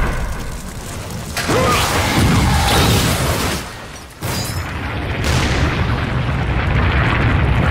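Sound effects of a volcano rumbling and erupting: a deep, loud rumble with booms, surging suddenly about a second and a half in, dropping away near four seconds, then cutting back in and running on steadily.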